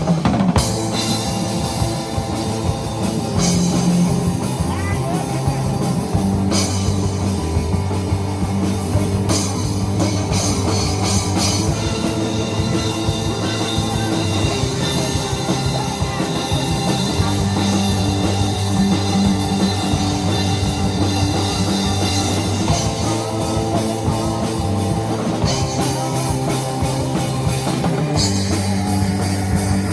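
Rock band playing live, with a drum kit and electric guitar.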